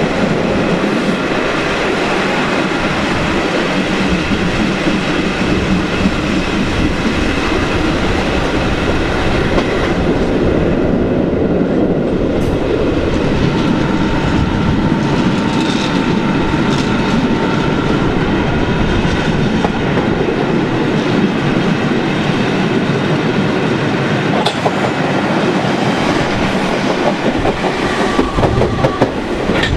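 Passenger train running along the track, a steady loud rumble of wheels on rail mixed with wind noise, heard through an open carriage window.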